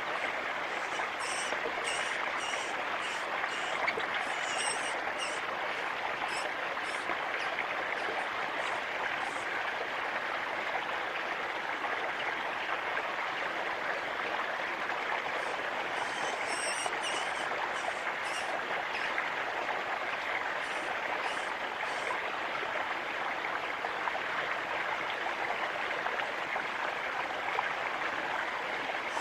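Steady rushing background noise like running water, with two bouts of short, high chirps from a small bird repeated in quick series, one in the first third and one just past the middle.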